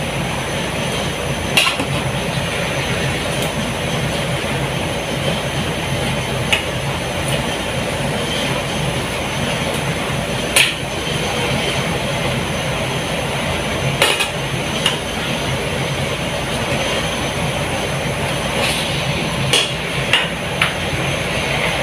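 Steady hiss with a low hum under it, and a few sharp metallic knocks several seconds apart: a pot of kangkong being cooked and stirred, the utensil knocking against the pot.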